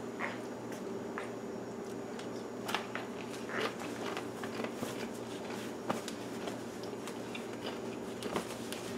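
Low steady hum of kitchen room tone, with scattered soft rustles and small clicks from hands being wiped on a cloth towel.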